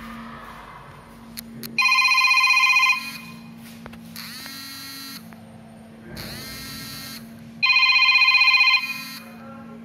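A telephone ringing: a loud warbling electronic ring about a second long sounds twice, about six seconds apart. Between the two rings come quieter tones that bend upward in pitch.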